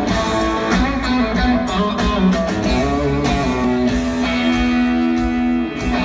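Live country band playing a song's guitar-led intro, heard from the audience.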